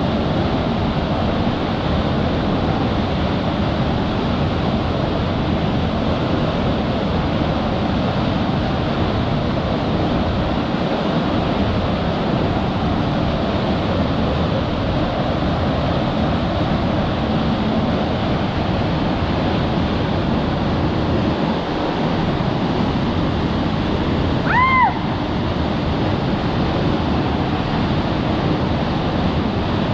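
Steady rushing water, a continuous even roar of falling or breaking water. About 25 seconds in, a single brief high chirp with a falling pitch cuts through.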